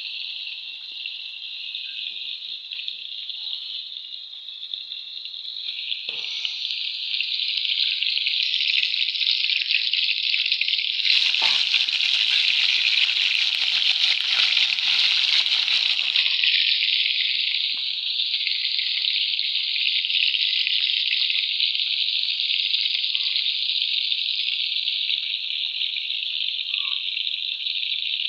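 Fish pieces frying in hot oil in a metal kadai, a steady sizzle throughout. It grows louder and fuller for about five seconds midway, with a light knock about six seconds in.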